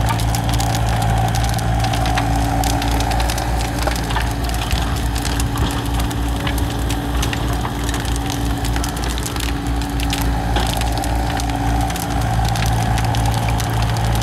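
Excavator grab tearing down a cottage's roof timbers and walls: wood cracking and splintering and rubble crashing, over the steady running of the diesel excavator engines.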